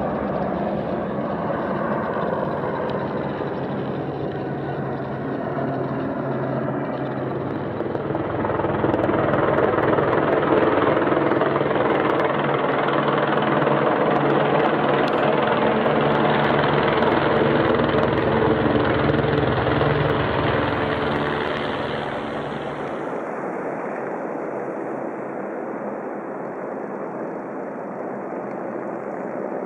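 Light helicopter flying past overhead, its rotor and engine noise growing louder about eight seconds in, then fading after about twenty-two seconds as it flies away.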